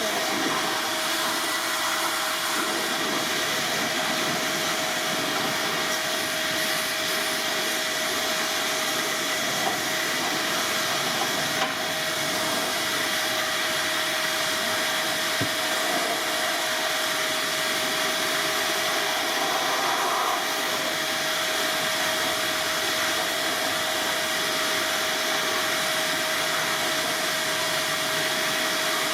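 Steady rushing of a motor-driven blower or vacuum, with a constant whine running through it.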